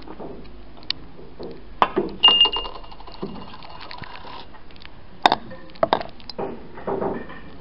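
Snooker shot with a light cue tap, then a sharp knock of the ball. Almost at once a coin clinks into a drinking glass, which rings briefly with a high tone. A few more sharp knocks follow later.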